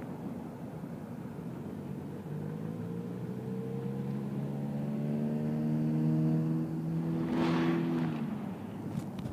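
Road vehicles driving over a railroad grade crossing after a freight train has cleared it: a car engine accelerating with its pitch slowly rising, passing close with a rush of noise about seven and a half seconds in.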